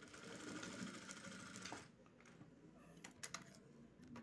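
Sewing machine stitching through elastic band in a fast even run for just under two seconds, then stopping. Two sharp clicks follow near the end.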